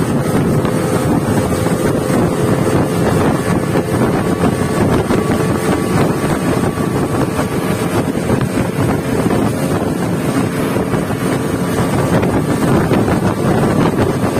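Motorboat engine running at speed, a steady drone mixed with rushing water and wind on the microphone.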